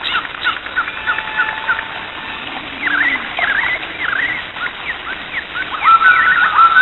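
High chirping animal calls: rapid short chirps and quick up-and-down sweeping notes, turning into repeated longer whistled notes, each with a falling start, from about six seconds in.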